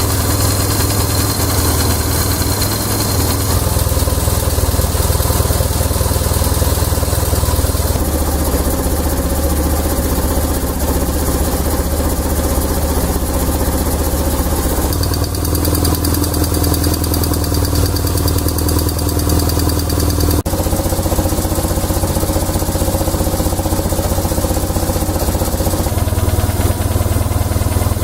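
BMW R1100RT's air-cooled boxer-twin engine idling steadily. Its tone shifts abruptly a few times, as at cuts between takes. This is the engine noise that a valve clearance adjustment is meant to cure.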